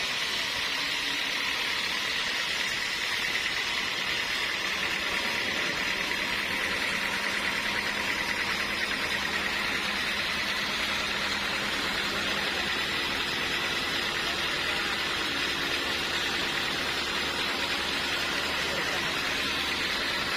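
Sawmill machinery running steadily: an even mechanical hum and hiss at a constant level, with no sudden knocks or changes.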